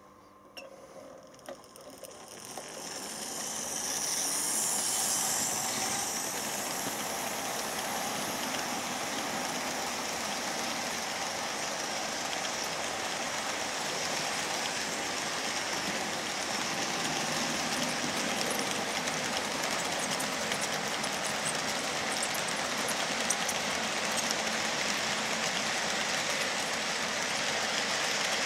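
Märklin H0 class 44 model steam locomotive on metal M track hauling a long train of 29 ballast-loaded OOtz 50 hopper wagons. The noise grows louder over the first few seconds as the locomotive draws close, then settles into a steady rolling rattle of wagon wheels on the track as the wagons stream past.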